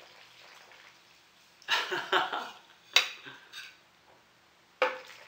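Serving spoon scooping sauced pasta out of a metal pot and knocking against the pot and a plate, with a clattering scrape about two seconds in and sharp clinks about three seconds in and near the end.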